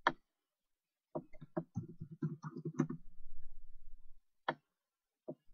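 Typing on a computer keyboard: a quick run of keystrokes lasting about two seconds, then two single clicks near the end.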